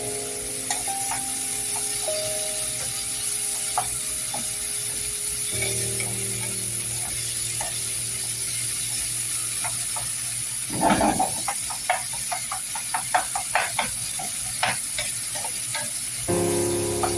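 Egg and tomato sizzling in a frying pan under background music. About eleven seconds in, a utensil stirs the pan in a quick run of scrapes and taps that lasts a few seconds.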